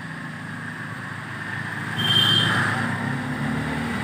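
Motor vehicle engine running steadily in the background, growing louder about halfway through.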